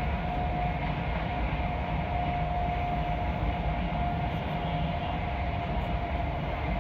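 Train running at speed, heard from inside the carriage: a steady rumble and rushing noise with a steady whine.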